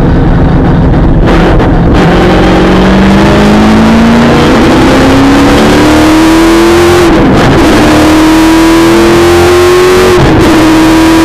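V8 supercar engine heard loud from inside the cockpit, accelerating hard with its pitch climbing steadily. It drops suddenly at two upshifts, about seven and ten seconds in, then climbs again after each.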